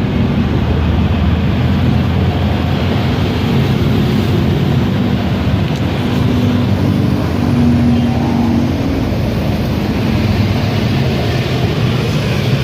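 A vehicle engine running steadily: a continuous low rumble with a hiss above it, unchanging throughout.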